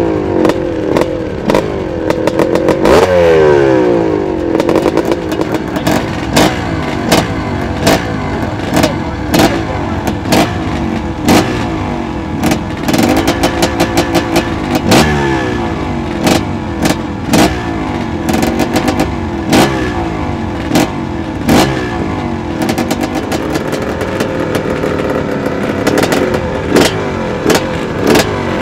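Yamaha 350 two-stroke dirt bike engine running and being revved repeatedly, its pitch rising and falling with each blip of the throttle, with frequent sharp cracks from the exhaust.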